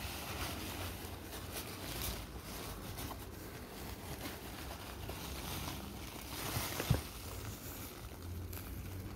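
Crumpled packing paper rustling and crinkling as a hand digs through it, with one sharper crackle about seven seconds in.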